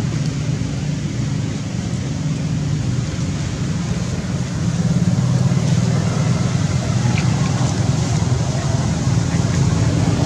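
A steady low rumble with a hiss over it, getting a little louder about halfway in.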